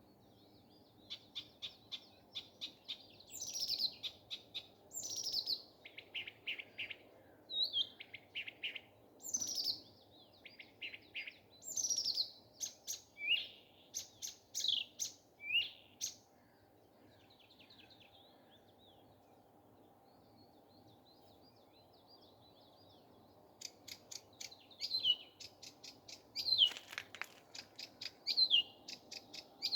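Nightingale singing: phrases of rapid repeated notes and sharp falling whistles, breaking off for about seven seconds in the middle before the song starts again. A faint steady low hum lies under it.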